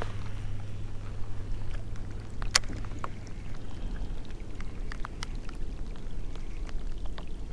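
Small waves lapping against a kayak's hull, over a low steady rumble, with scattered light ticks and clicks, one sharper click about two and a half seconds in.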